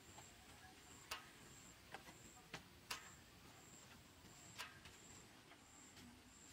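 Quiet forest ambience with a faint, high chirp repeating about every two-thirds of a second, typical of an insect, and a few sharp clicks from bare feet on a split-bamboo floor.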